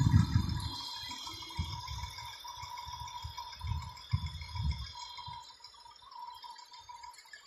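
Gusts of wind buffeting the microphone in irregular low rumbles, loudest at the start, over a faint steady high-pitched whine.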